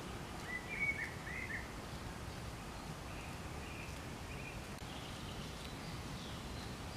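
Bird chirping over steady outdoor background noise: a few short chirps about a second in are the loudest sounds, followed by fainter, higher chirps over the next few seconds.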